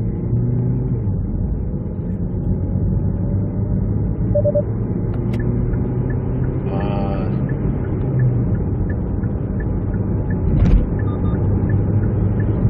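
Cabin sound of a 2017 Kia Niro Hybrid's 1.6-litre petrol four-cylinder and road noise while the car is lightly accelerated: a steady low drone with a faint slowly rising whine. A faint regular ticking, two to three a second, joins about halfway through.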